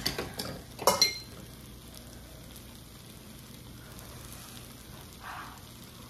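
Stir-fried calamari, octopus and jjolmyeon noodles sizzling quietly in a pan on a lit burner. A few clicks and scrapes of chopsticks and a ladle against the pan in the first second or so.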